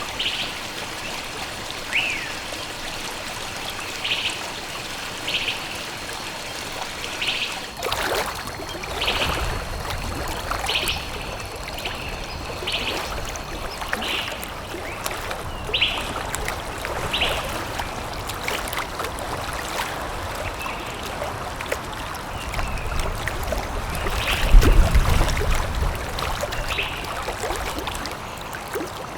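Forest birds giving short repeated chirps about every second or so over running water. About eight seconds in, a deeper rushing sound joins, and a loud low rumble swells briefly near the end.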